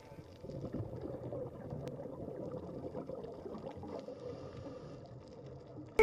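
Faint underwater ambience: an uneven wash of water noise with scattered small clicks.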